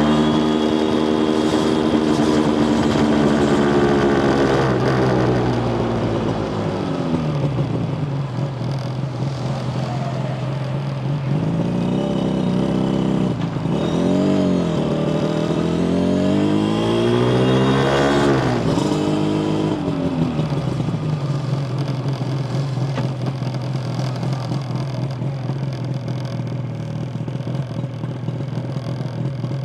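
Yamaha TZR250 1KT's liquid-cooled parallel-twin two-stroke engine, heard from on board. The revs fall away over the first several seconds and settle to a steady low tickover, rise and fall twice around the middle, then run steadily at the low tickover for the last third.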